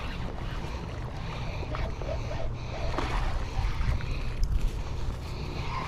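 Wind buffeting the microphone outdoors: a steady, unevenly gusting low rumble.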